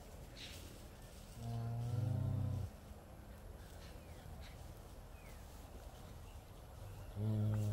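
Cattle mooing: two deep, drawn-out calls, each lasting over a second, the first about a second and a half in and the second starting near the end.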